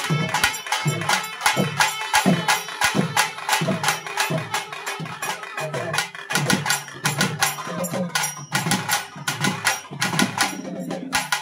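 Ensemble of double-headed barrel drums, South Indian festival drums slung at the waist, beaten together in a fast, dense rhythm of sharp strokes, several a second.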